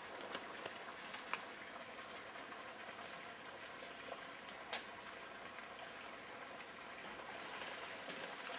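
Steady high-pitched insect chorus, with a couple of faint ticks.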